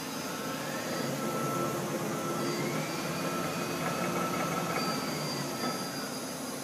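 Mori Seiki SL-65 CNC lathe running, a steady mechanical hum with a motor whine that rises in pitch over the first couple of seconds, holds, then falls away near the end.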